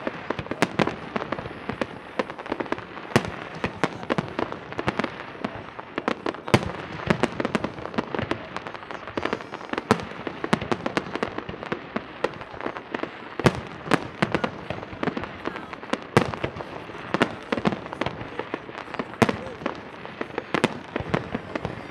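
Fireworks display: aerial shells bursting in a dense, irregular barrage of bangs and pops, several a second, with no let-up.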